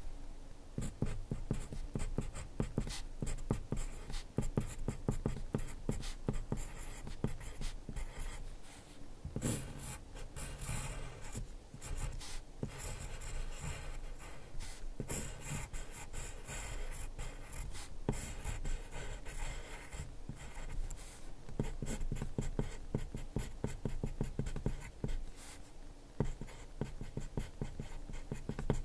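Pencil writing on paper, close-miked: a quick run of scratchy strokes forming handwritten characters, with brief pauses between them.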